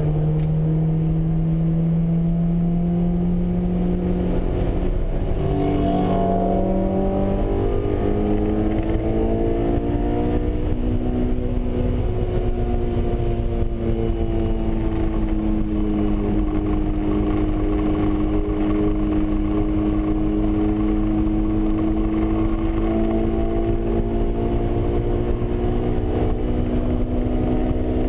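Honda S2000's 2.0-litre four-cylinder engine heard from inside the cabin at track speed, its note changing in quick steps around six seconds in and then holding a long, slowly shifting pitch, with steady road rumble underneath.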